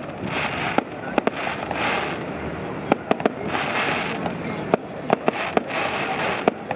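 Fireworks going off: a run of sharp bangs and cracks at irregular intervals, over a steady rush of background noise.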